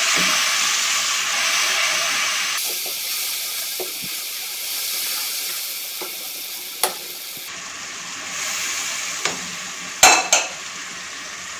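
Onions in oil with a little water and ground spices, sizzling in a non-stick wok while a spatula stirs them. The sizzle slowly fades, and the spatula knocks against the pan a few times, twice in quick succession near the end.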